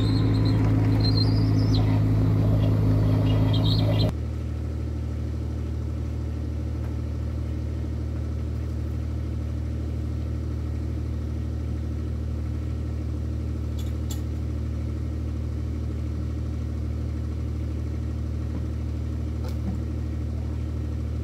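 Kubota mini excavator's diesel engine running steadily. About four seconds in, the sound drops suddenly to a quieter, more distant hum that continues unchanged.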